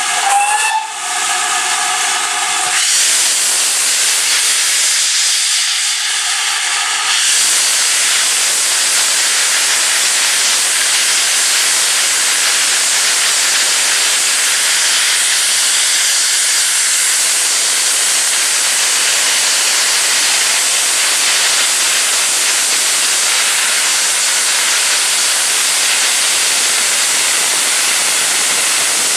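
GWR Manor-class steam locomotive 7812 'Erlestoke Manor' whistles in the first seven seconds. From about seven seconds in, a loud, steady hiss of steam blowing from its open cylinder drain cocks takes over as it starts away.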